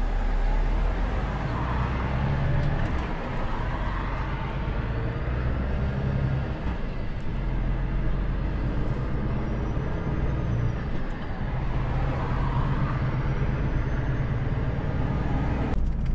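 Volvo truck's diesel engine and road noise heard from inside the cab while driving, a steady drone whose low engine note shifts in pitch a few times.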